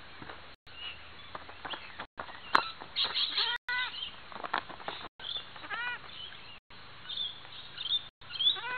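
Short animal calls, each rising then falling in pitch, in small groups, with a few knocks between them. The audio cuts out for a moment about every second and a half.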